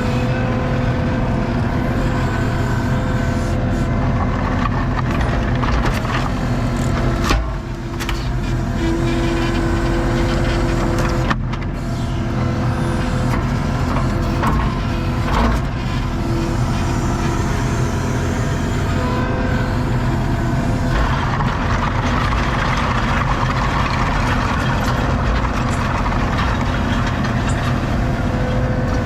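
ASV RT-40 compact track loader's diesel engine running steadily under work. A few sharp metallic knocks come about 7, 11 and 15 seconds in as the grapple handles pallets, and a hiss joins the engine from about two-thirds of the way through.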